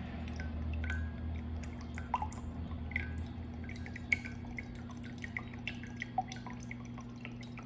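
Coconut water dripping from holes pierced in a coconut's eyes into a measuring jug that already holds some liquid: irregular drips, several a second, over a low steady hum.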